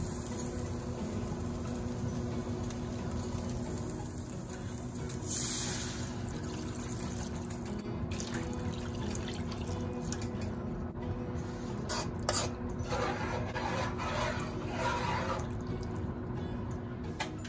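Water poured from a cup into a hot wok of stir-fried vegetables, splashing into the pan, with a spatula stirring through the broth near the end.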